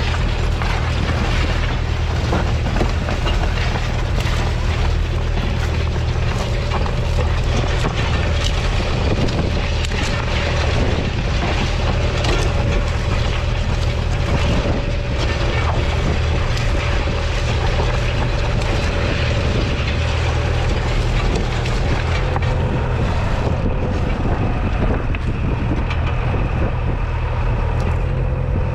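2004 Valtra A95's 4.4-litre four-cylinder diesel engine running steadily under load, pulling a two-furrow reversible plough through the soil.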